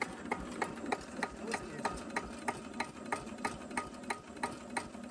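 Cunewalder single-cylinder hopper-cooled diesel engine running very slowly at a low idle, with a regular ticking about three times a second.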